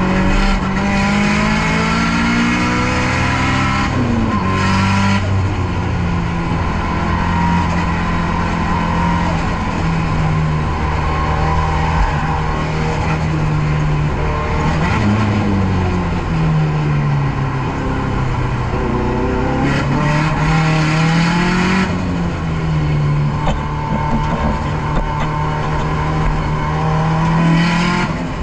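Nissan S13's turbocharged SR20DET four-cylinder engine driven hard on a lap of a race circuit, its pitch climbing as it revs up and dropping sharply at each gear change, several times over.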